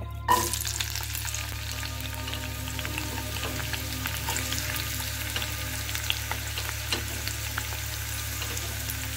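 Chopped red onion dropped into hot oil in a non-stick kadai, with a sudden burst just after the start, then sizzling steadily with many small crackles as the onion begins to fry.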